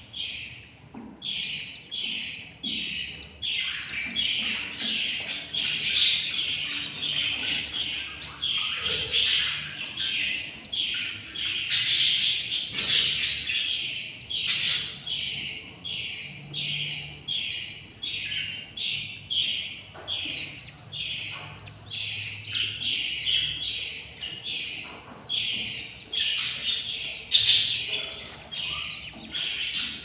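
Newly hatched budgerigar chicks cheeping in the nest box, a steady train of short, high calls at about two a second: the begging calls of hungry chicks.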